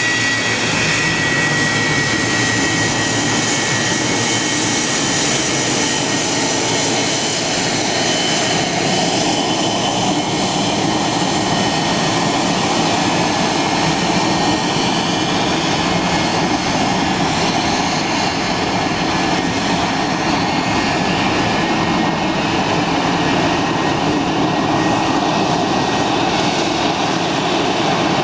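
McDonnell Douglas MD-80-series airliner taxiing, its two tail-mounted JT8D jet engines running at low thrust with a steady roar. A high whine is strongest at the start and fades over the first several seconds, while the lower roar grows as the engine exhausts swing toward the listener.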